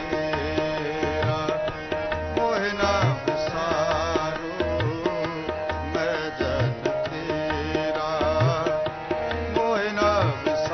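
Sikh kirtan: harmoniums holding sustained notes, a tabla keeping the beat with the bass drum's pitch gliding up on a stroke about every two seconds, and a singer's voice wavering over them.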